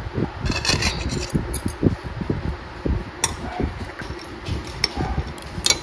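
Metal chopsticks clinking and scraping against a porcelain plate a few times, with sharp clicks over a low rumble of soft knocks.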